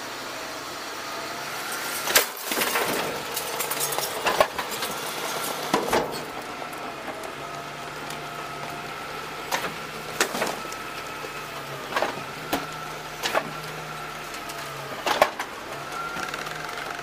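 DaDee Scorpion automated side-loader garbage truck: a steady hydraulic whine over the running engine, with clatter and sharp thumps as the arm tips carts over the hopper and bagged trash drops in. There are two rounds of knocks, one a couple of seconds in and another from about halfway to near the end.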